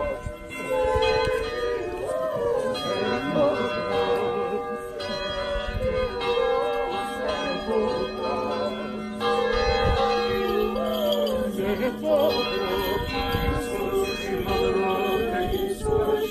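Church bells ringing, strikes overlapping and ringing on, over a group of voices singing.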